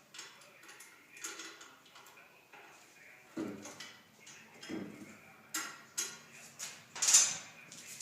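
Metal tools and parts clinking and knocking against the wheel rim and the manual tire changer: a series of irregular clinks and dull knocks, the loudest a sharp clank about seven seconds in.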